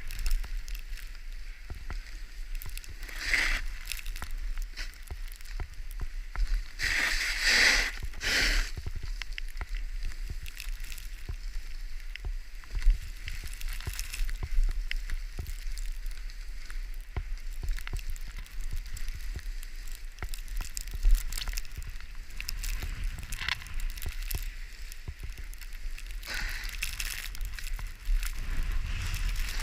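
Skis hissing and scraping over snow and ice in repeated swells, louder on several turns, over a steady low wind rumble on the microphone.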